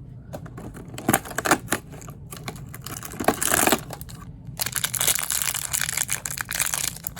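A small packaging bag being crinkled and torn open by hand: sharp crackles about a second in and again around three seconds, then continuous crinkling from about halfway on.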